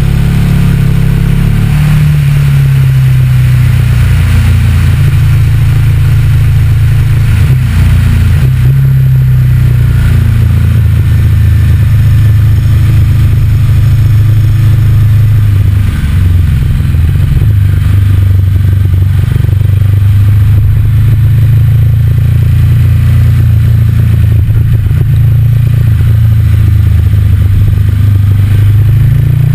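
Motorcycle engine under way, heard close up from the front fork. Its pitch rises and falls with throttle and gear changes through the bends, over a steady rush of wind and road noise.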